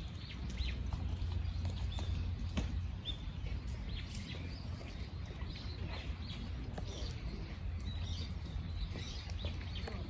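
Footsteps on a path strewn with dry fallen leaves: irregular crackling and scuffing as someone walks, over a steady low hum.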